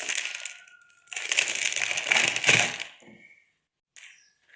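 Dry instant-noodle block being crushed and broken by hand inside its plastic packet, crackling and snapping. A short bout at the start, then a louder one of about two seconds.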